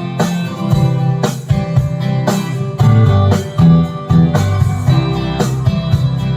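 Guitar-led instrumental intro of a song, strummed chords over a steady beat of about two strokes a second.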